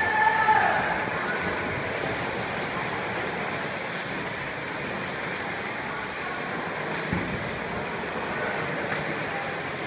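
Swimmers splashing their way down an indoor pool: a steady wash of churning water. Near the start, a short high-pitched call rises and falls over it.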